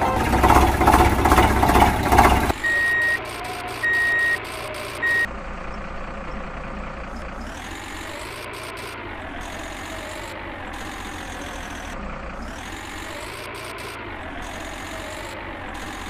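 Three reversing beeps, each a steady high tone about half a second long, over a truck engine running steadily. A louder, rougher noise fills the first two seconds or so before the beeps begin.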